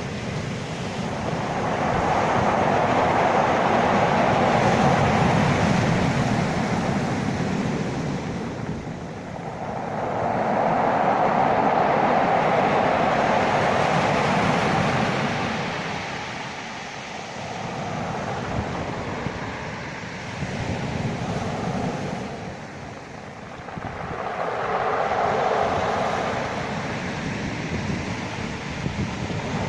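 Sea waves breaking and washing in, a rushing noise that swells and ebbs in slow surges, three big ones several seconds apart.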